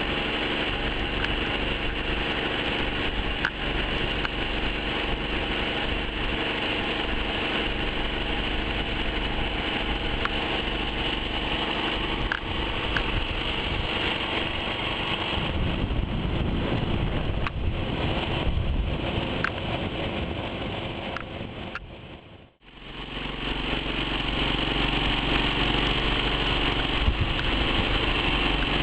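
Homemade mud-motor (surface-drive outboard) engine running steadily under way on a boat. About 22 seconds in the sound fades almost to nothing, then comes back at its earlier level.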